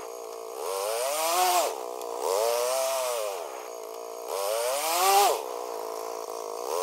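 ATV engine revving up and easing off over and over, about three times, as the quad pushes snow with its front-mounted plow.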